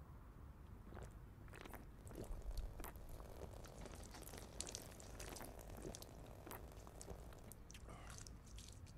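Faint scattered clicks and crackles, a few a second, at a very low level over a faint low hum.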